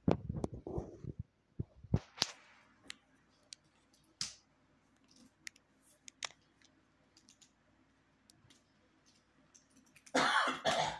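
Plastic toy packaging being handled and cut open with scissors: scattered small clicks and rustles, a short burst of noise at the start and a louder rustle near the end.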